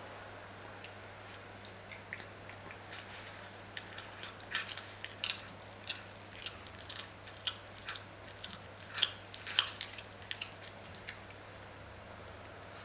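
Sphynx cat chewing whole raw day-old chicks: irregular crunches and clicks of its teeth, thickest and loudest in the middle.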